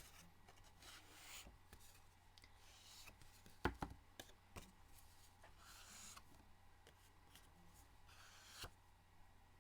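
Faint rubbing of cardstock edges being swiped across an ink pad, with a few light taps of the paper and pad on the table, the clearest about a third of the way in.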